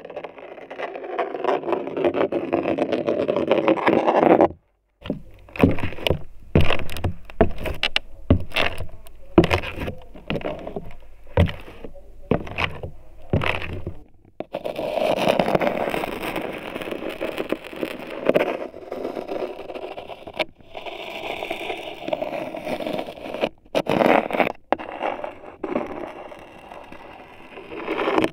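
A glass marble rolling across wooden floorboards, heard through the wood by a contact microphone. There is a long continuous rolling rumble that cuts off suddenly after about four seconds, then a run of separate sharp knocks and clicks at uneven intervals. Another long rolling stretch follows, ending in scattered knocks.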